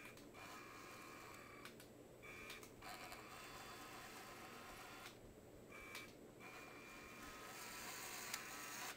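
Faint whir of small Lego Power Functions M motors and their gearing, cutting out and starting again several times in short bursts.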